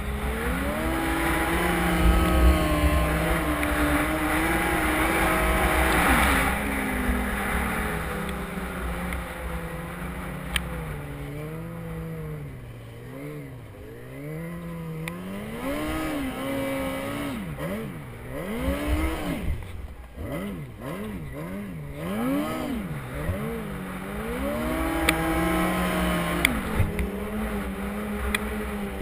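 Yamaha Apex snowmobile's four-cylinder four-stroke engine under hard throttle lifting the skis. It holds high revs for the first few seconds, then the revs rise and fall repeatedly as the throttle is worked, and it climbs back to a steady high pitch near the end.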